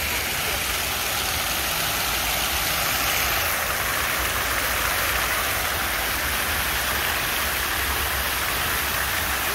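Water from a large multi-jet fountain splashing down into its basin: a steady rush of falling water.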